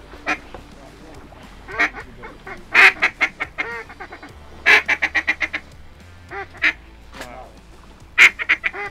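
Ducks quacking in loud, fast series again and again: each series a strong first quack followed by a quick run of shorter ones, with a few softer single notes in between.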